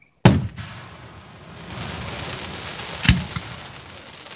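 Aerial firework shells bursting: a sharp bang a quarter second in and a second bang about three seconds later. Between them runs a long sizzling hiss from the burning stars.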